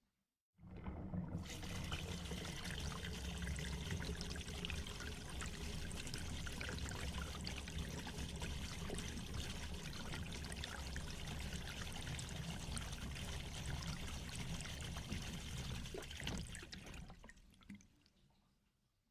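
Water draining away in a steady trickling, pouring flow. It starts about half a second in and dies away a little before the end.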